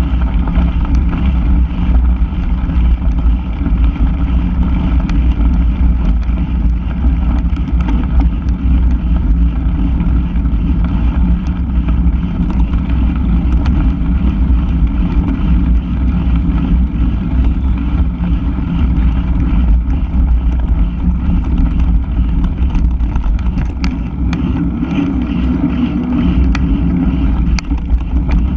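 Steady wind rumble and buffeting on a handlebar-mounted action camera as a mountain bike rolls along a gravel track on knobby tyres, with scattered short rattles from the bike jolting over the surface.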